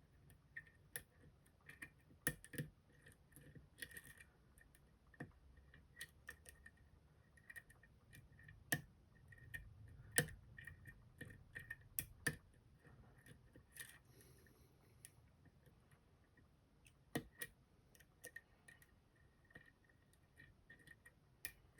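Lock-picking tools working the pin stacks of an Assa Guideline high-security lock held in a vise: faint, irregular metal clicks and ticks as the barrel drivers are pushed up through the plug's milling, with a few sharper clicks now and then.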